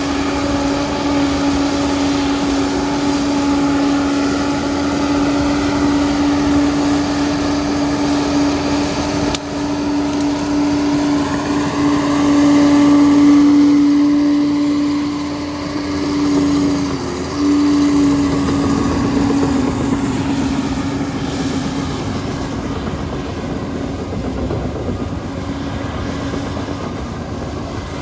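Liebherr 746 crawler bulldozer running under work, a strong steady mechanical drone with higher tones that glide up and down. It swells louder around the middle and dips briefly a few seconds later.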